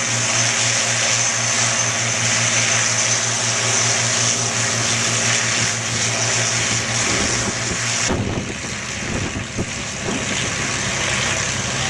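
Avro Lancaster's four Rolls-Royce Merlin V12 engines running as the bomber taxis, a steady pulsing propeller drone. About eight seconds in, a high hiss over it cuts off abruptly and the engine sound turns rougher and slightly quieter.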